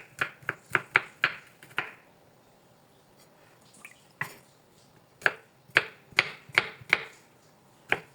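Kitchen knife chopping on a cutting board: runs of quick knocks about four a second, with short pauses between runs.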